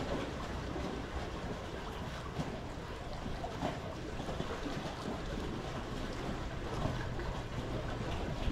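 Steady wind noise on the microphone: a low rumble with hiss, without clear breaks.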